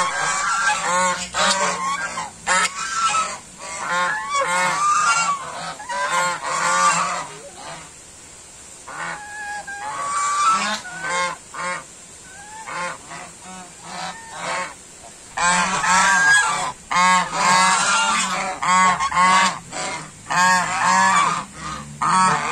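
Several domestic white geese honking in rapid, overlapping series. The calling thins out and quietens for several seconds in the middle, then comes thick again from about two-thirds of the way through.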